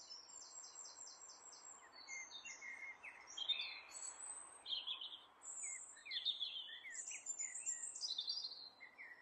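Birds calling and singing: a quick even run of high chirps, then assorted short whistled and chirping calls from several birds, over a faint steady hiss.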